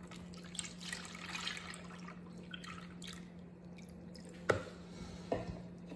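Thin cake batter poured from a plastic measuring jug into a plastic bowl, splashing softly at first and then dribbling off the spout. A sharp knock comes a little after four seconds in, with a fainter one about a second later.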